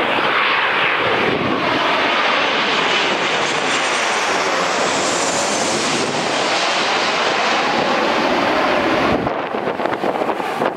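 Boeing 737-800's CFM56-7B turbofan engines on landing approach, a loud steady rush of jet noise with slowly sweeping changes in tone as the airliner passes low overhead. The noise drops away suddenly about nine seconds in, leaving wind on the microphone.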